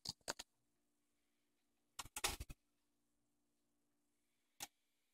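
A few faint clicks from a Dual 506 belt-drive turntable's controls being handled: a couple near the start, a small cluster about two seconds in and a single click near the end, over a faint low hum.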